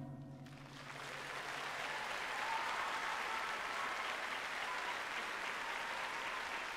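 Audience applauding, building up over the first couple of seconds and then holding steady.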